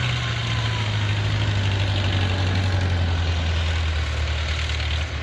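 Diesel engine of rice-harvesting machinery running steadily, its pitch dropping a little in the first couple of seconds as the revs come down, then holding at a lower, idle-like speed.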